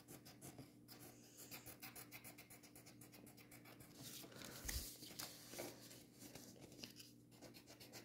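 Faint scratching of a pencil on paper in quick short strokes, as teeth are drawn on a folded sheet. A soft bump on the table a little past halfway is the loudest moment.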